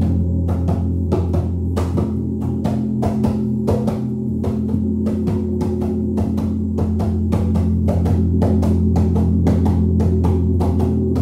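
Gong played continuously: a steady deep humming drone with overtones, kept going by rapid light mallet strikes several times a second.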